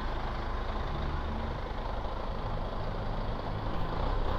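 A vehicle engine idling steadily, a low even hum with street noise.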